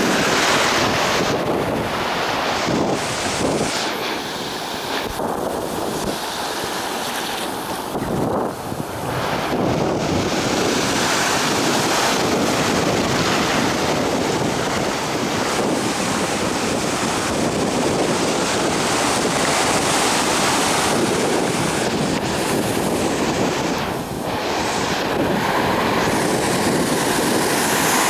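Surf on a rough Red Sea: waves breaking and washing in continuously, swelling and easing, with wind buffeting the microphone.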